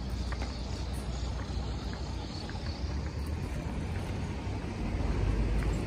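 Busy street ambience: a steady low rumble of road traffic under a hiss of background noise, with a few faint light ticks, growing a little louder about five seconds in.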